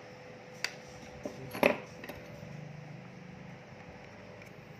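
Needle-nose pliers pulling a metal pin out of the plastic end cap of a laser toner cartridge: a few sharp clicks and clinks, the loudest a quick cluster about a second and a half in.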